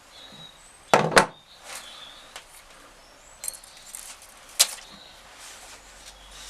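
A few sharp clicks and knocks from handling the tying wire, bottle cap and tools on a work surface, the loudest a double knock about a second in, with faint bird chirps in the background.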